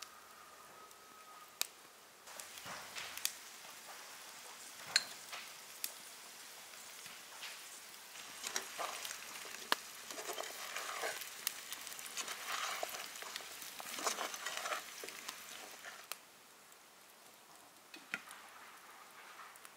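Cubed pumpkin sizzling as it fries in a pan over a wood fire, with a wooden spoon stirring and scraping through it in the middle stretch. Occasional sharp clicks.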